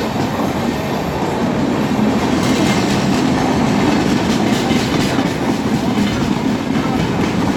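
Indian train running along the track: a steady, loud rumble with wheel clatter.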